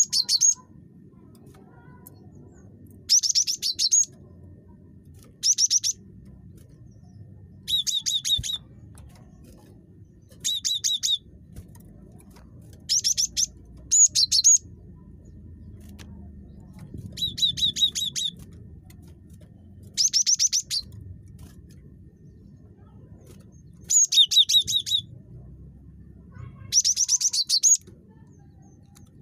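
Cinereous tit (gelatik batu) calling in short, rapid chattering bursts of high repeated notes, about a dozen bursts spaced every two to three seconds. A faint low background hum lies underneath.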